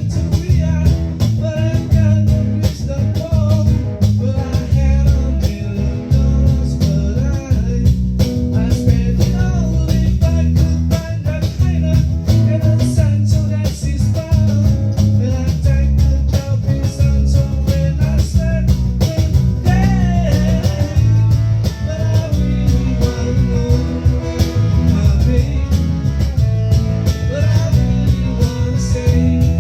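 A live band jamming: guitar over bass and drums, with a steady beat.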